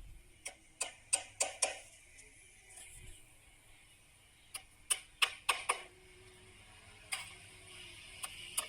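Sharp clicks and knocks of small parts being handled and set down, in two quick clusters of four or five, one about a second in and one about five seconds in, with a single knock near the end.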